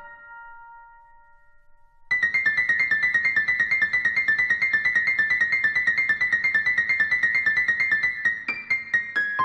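Piano background music: a held chord dies away, then about two seconds in a fast run of repeated high notes begins, about eight a second, giving way near the end to single notes stepping downward.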